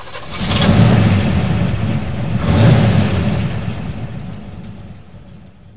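Car engine revving twice, the second rev about two seconds after the first, then dying away.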